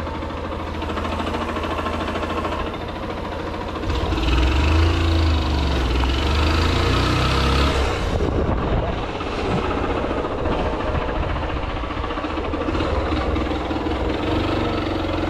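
A motor vehicle engine running steadily with a low rumble, louder for a few seconds starting about four seconds in.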